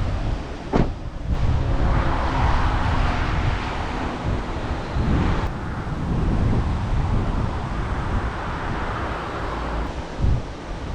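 Wind buffeting the microphone: a heavy, uneven low rumble with a rushing hiss, and one sharp click about a second in.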